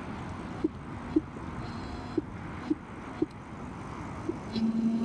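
Steady wind and road noise from riding an Electric Bike Company Model J e-bike, with a short chirp about every half second to a second. A steady low hum comes in for about a second near the end.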